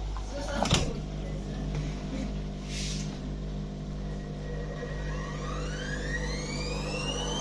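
Electrolux EW1077F washing machine running with a steady low hum and a clunk about a second in. From about five seconds in, the drum motor's whine rises steadily in pitch as the drum speeds up.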